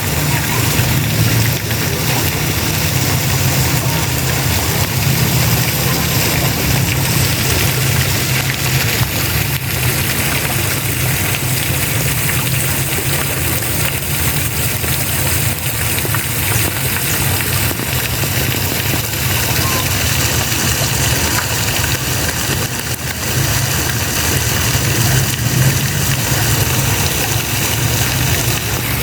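Steady rush of spraying water over a low, steady engine hum.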